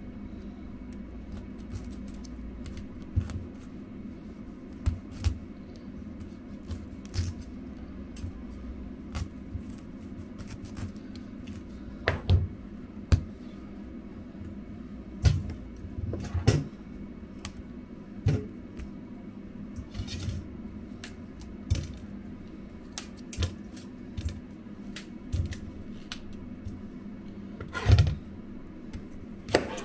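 Scattered clicks and knocks from kitchen items being handled during cooking, irregular and a few seconds apart, with two louder knocks about twelve seconds in and near the end, over a steady low hum.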